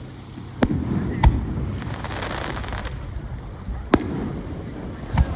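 Aerial fireworks bursting: sharp bangs about half a second in, again just after a second, near four seconds and near the end, with a spell of crackle between about two and three seconds.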